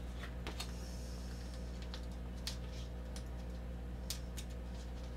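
Faint rustling and small clicks of a sticker being handled and its backing picked at by fingers, over a steady low hum.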